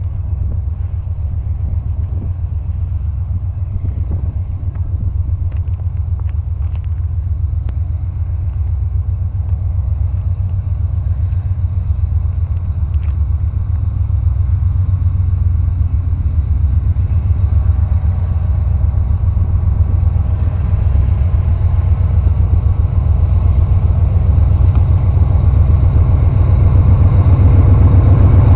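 Diesel engines of GE C40-8M and C44-9W freight locomotives (V16 FDL engines) running with a steady low throbbing rumble that grows gradually louder as the train approaches.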